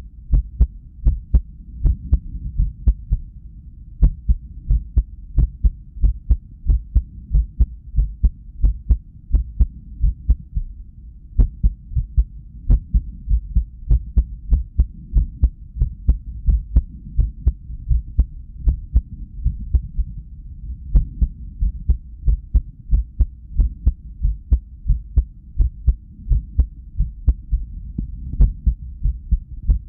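A human heartbeat: a steady train of low thumping beats at rest, unevenly spaced with a few longer pauses between beats. The irregular rhythm is a resting arrhythmia, which the person puts down to lack of sleep.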